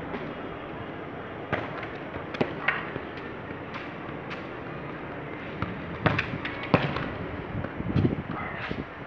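Football juggled with the feet: irregular thuds of the ball on the foot, roughly one touch a second, the loudest about six and eight seconds in, over a steady background hiss.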